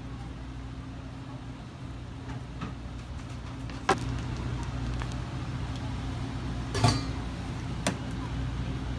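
Steady low machine hum, a little louder after about four seconds, broken by three short sharp knocks, the loudest near the seven-second mark.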